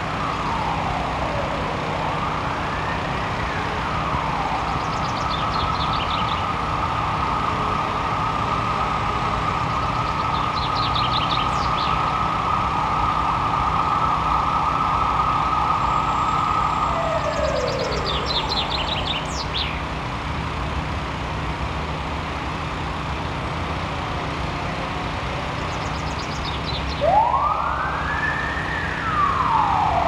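An emergency-vehicle siren wails up and down, holds one steady tone for about ten seconds, then falls away and starts wailing again near the end. Over it a common chaffinch sings its short rattling trill-and-flourish song four times.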